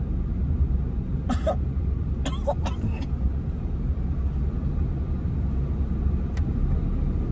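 Steady low road and engine rumble inside a moving car's cabin, with a few short coughs about one and two to three seconds in, in reaction to a foul smell.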